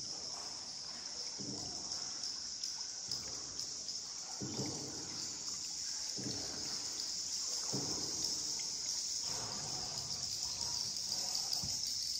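Paddle strokes in river water, a soft splash and trickle about every one and a half seconds, over a steady high hiss.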